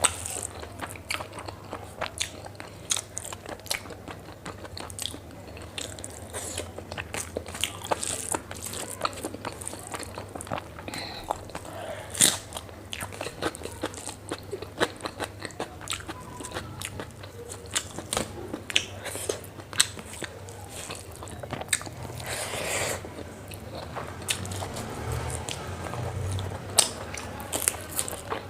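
Close-miked eating: a person chewing food with a steady run of wet mouth smacks and crunchy bites.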